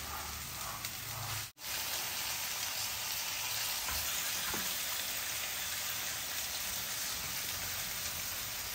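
Hot oil sizzling steadily in a frying pan as raw chicken liver pieces go in on top of fried onions, fenugreek leaves and mint. The sound cuts out for an instant about a second and a half in.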